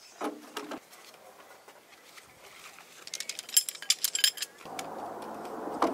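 Aluminium shock-corded poles of a folding camp table clicking and clattering as the frame is unfolded and its poles snap together, in a quick run of sharp clicks about three seconds in. Near the end a helicopter passing overhead comes in as a steady drone.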